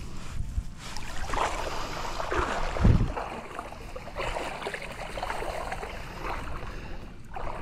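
Water splashing and sloshing with irregular rustling, with a dull thump about three seconds in.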